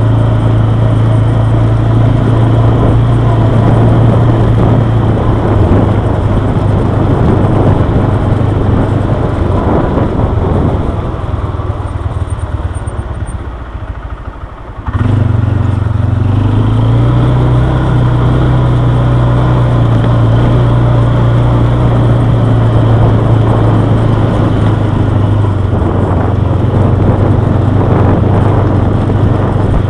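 Quad bike engine running steadily at a constant pitch. About halfway through the sound sinks away over a few seconds, then comes back suddenly at full level, and the engine pitch steps up slightly soon after.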